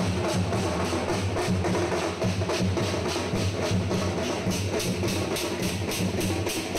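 Music with a fast, steady drum beat.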